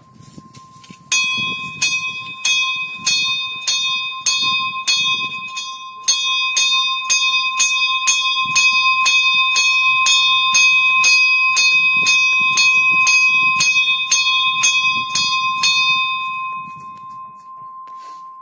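Temple bell rung during an aarti: single clanging strokes about twice a second, then faster continuous ringing, stopping near the end and leaving a fading ring.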